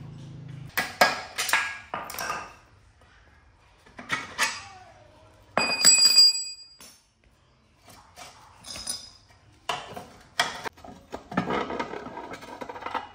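Metal clinks and clanks as tools and rusty motorcycle frame parts are handled and set down on a tiled floor, in short separate knocks and rattles. About six seconds in, a piece of metal rings out with a clear ping.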